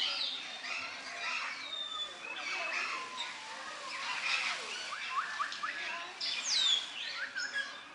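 Many small birds chirping and twittering at once: a dense chorus of short overlapping calls and quick falling whistles.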